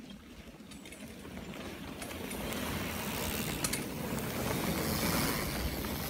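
Mountain bike tyres rolling over a dirt trail strewn with dry leaves as a group of riders approaches, the rolling noise growing louder as they near and the front rider passes close by. A few sharp clicks sound about halfway through.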